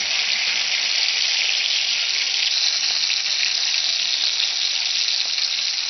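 Hot oil sizzling steadily in a pan as a tadka of garlic, onion and green chillies fries with red chilli powder.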